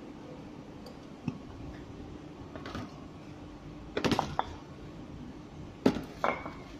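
Grip-handle calibration weights clanking as they are handled and set on the counting scale's platform: a few sharp metallic knocks, the loudest cluster about four seconds in and two more near the end. A steady low hum runs underneath.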